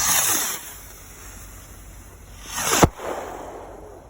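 Consumer fireworks going off: a hissing, crackling burst at the start, then about two and a half seconds in a rising whoosh that ends in a sharp bang, followed by crackling.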